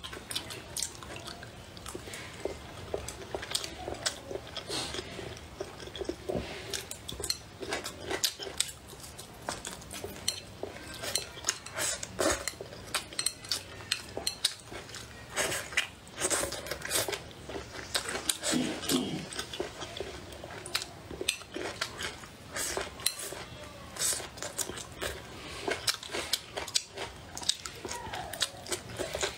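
Close-up eating sounds: chopsticks clicking irregularly against the bowl, with chewing of stir-fried green chillies and cured pork.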